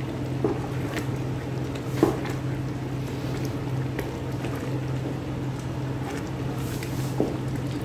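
Thick melon soup being stirred with a spatula in a large aluminium pot, a wet, squelching churn with a few faint scrapes against the pot, over a steady low hum.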